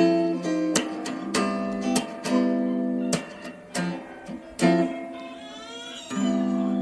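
Acoustic guitar music, plucked notes and strummed chords.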